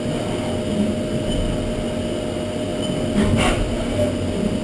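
Haas Super Mini Mill 2 CNC vertical mill running its program, the spindle and cutter milling the part with a steady running tone over constant machine noise. A short burst of hiss comes about three seconds in.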